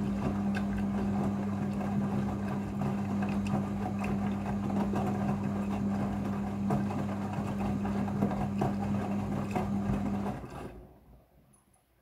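Midea front-loading washing machine tumbling a load in its rinse cycle: a steady motor hum over the churning slosh of water and wet clothes in the drum. About ten seconds in the drum stops and the sound dies away.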